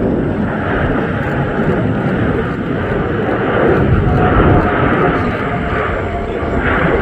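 Jet airliner on landing approach, its engines giving a loud, steady rumble and roar as it passes.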